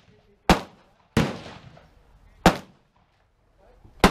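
Handgun shots: four sharp reports, unevenly spaced, the second trailing off longer than the others.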